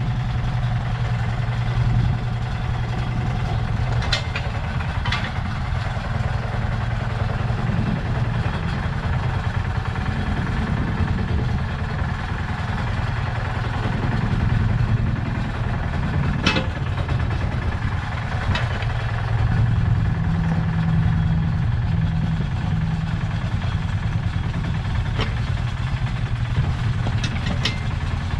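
Lister SR1 single-cylinder diesel engine of a 1979 Smalley 5 mini digger running steadily while the digger works. A few short, sharp clanks are scattered through.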